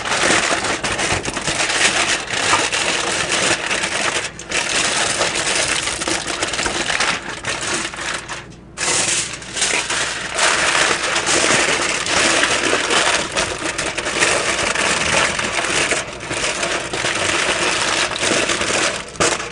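Aluminium foil crinkling and crackling as hands crumple and press it into shape over a tart pan, with a short break about eight and a half seconds in.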